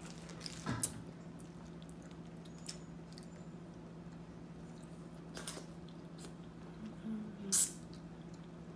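Close-up eating sounds as saucy razor clam meat is eaten by hand: three short wet slurps and mouth smacks, the loudest near the end, over a steady low hum.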